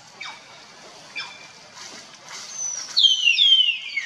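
Macaque's high-pitched squealing calls: two short falling chirps in the first second or so, then a loud run of falling squeals over the last second and a half.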